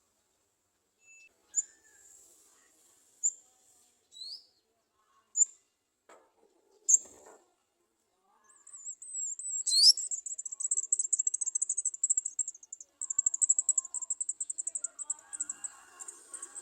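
Garden sunbird calling: a few separate short, high, thin chirps, then from about halfway a rapid high twittering trill that keeps going.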